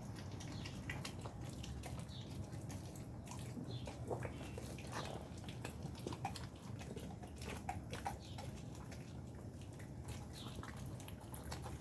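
Two blue-nose pit bull puppies chewing and gnawing on a steak: faint wet chewing and smacking with many small scattered clicks.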